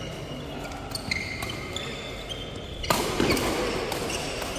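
Badminton rally: rackets hitting the shuttlecock with sharp clicks and court shoes squeaking on the court mats, with a louder burst of noise about three seconds in.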